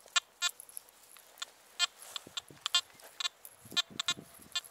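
Anfibio metal detector giving short, clipped beeps: about a dozen brief chirps, all at the same pitch and irregularly spaced, as the coil is swept over the ground.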